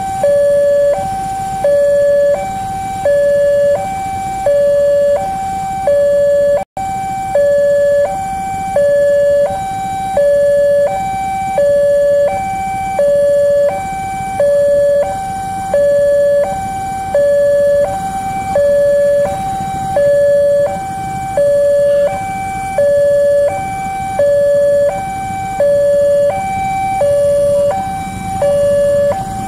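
Railroad level-crossing warning alarm played from a loudspeaker: an electronic two-tone signal, high and low notes alternating about once a second, that sounds while the barrier is closed for an approaching train. It cuts out for an instant about seven seconds in.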